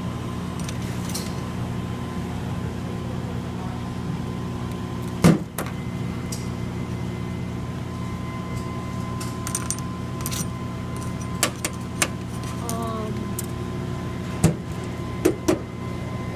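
Scattered sharp clicks and knocks of live blue crabs' shells and claws and metal tongs against a stainless steel tray, the loudest about five seconds in and several close together near the end, over a steady mechanical hum.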